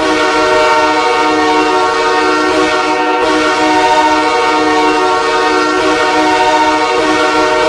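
Hockey goal horn sounding one long, steady air-horn chord of several tones, held without a break.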